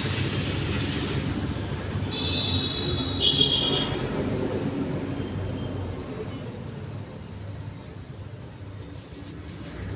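Background vehicle noise: a steady low rumble that slowly fades, with a brief high-pitched squeal about two to four seconds in.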